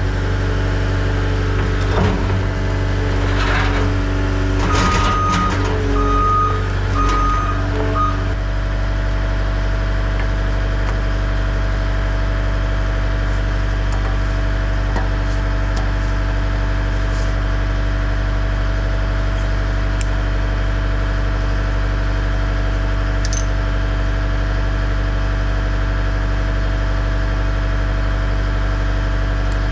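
CAT 262D skid steer's diesel engine running steadily. About five seconds in, a run of evenly spaced beeps at one pitch sounds for a few seconds over some clatter, and then the engine settles to a steady, unchanging idle.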